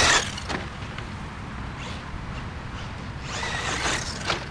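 Redcat Blackout SC brushless RC short-course truck driving on a dirt track. A loud burst fades just after the start, a steady low rumble follows, and about three seconds in comes another burst of motor and tyre noise with a faint high whine as it accelerates.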